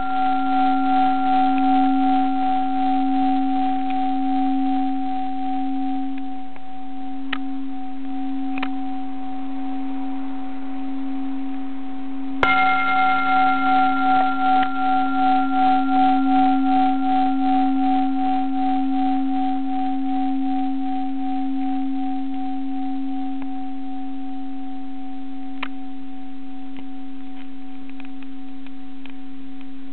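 Japanese Buddhist bowl bell (rin) of hammered metal ringing with a long, wavering hum. It is struck once more with its mallet about twelve seconds in and rings on, slowly fading.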